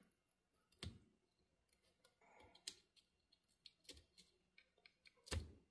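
Mostly quiet, with a few faint clicks and a brief scrape as a small tool cuts the tape holding the cable to a laptop battery, then one louder knock near the end.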